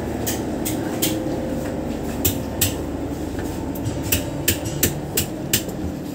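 Footsteps knocking sharply on metal stair treads and the cabin deck, about three steps a second in the later run, over the steady drone of a fast passenger boat's engines.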